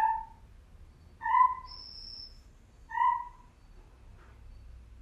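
Field recording of the calls of Ecnomiohyla valancifer, a rare gliding tree frog: three short calls about a second and a half apart. A thin high note sounds briefly about two seconds in.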